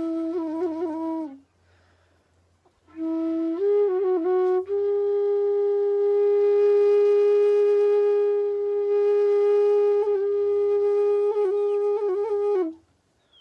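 Solo flute playing a slow Nepali folk melody. A short ornamented phrase breaks off about a second in; after a pause, a new phrase settles into one long held note with small trills near its end, and it stops shortly before the end.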